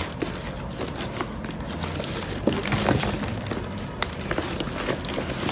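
Handling noise from a plastic PVC tote bag: light rustling and crinkling with scattered small clicks and knocks as it is moved about.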